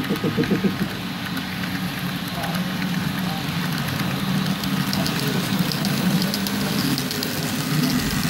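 Model freight train of double-stack container wagons rolling past on the track, with quick, even wheel clicks over a steady hum, and lighter, higher clicks in the second half.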